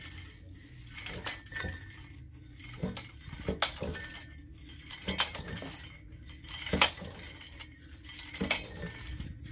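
Hand-operated well-boring rig: metal clinks and knocks as the crew works the drill pipe hung from the tripod's rope tackle. An uneven run of sharp strikes about one a second, the loudest about seven seconds in.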